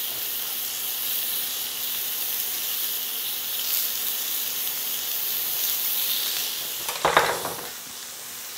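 Salmon fillets sizzling as they fry in a pan, a steady hiss. About seven seconds in there is a brief louder sound, and after it the sizzling is fainter.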